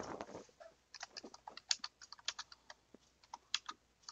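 Typing on a computer keyboard: a run of quick, irregular key clicks that starts about a second in.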